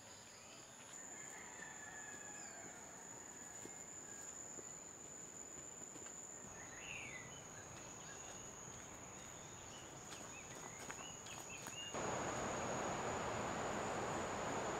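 Forest ambience of insects: a steady high insect trill, with a couple of faint chirps near the middle. About twelve seconds in it switches abruptly to a louder, hissing insect chorus.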